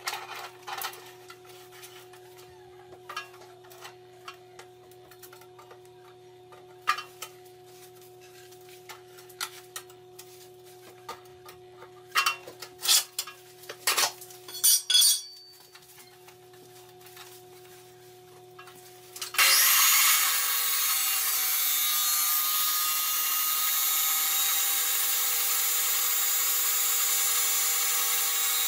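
Light clicks and knocks of steel tubing being set and clamped in a chop saw's vise, then about 19 seconds in an abrasive metal cut-off saw comes on suddenly and grinds steadily through square steel tubing, loud to the end.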